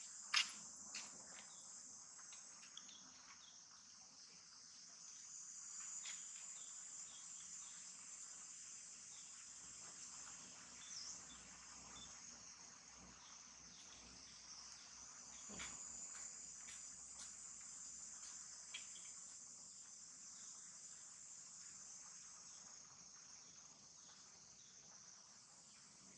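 A steady, high-pitched insect chorus that slowly swells and fades, with a few faint clicks, the sharpest just after the start.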